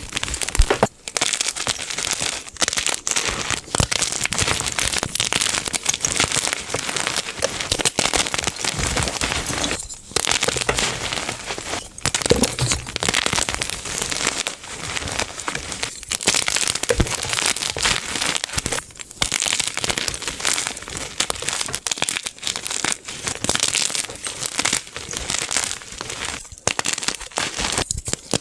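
Blocks of gym chalk being crushed: a dense, steady run of crunching and crumbling crackle, broken by a few brief gaps.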